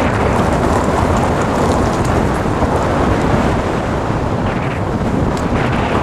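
Wind rushing over the microphone of a moving motorcycle, a steady dense noise with the vehicle's running and its tyres on a gravel road underneath.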